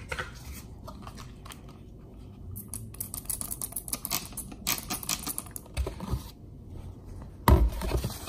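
Trigger spray bottle of isopropyl alcohol spritzing a wheel center cap in a quick run of short clicky sprays. A single heavy thump comes near the end.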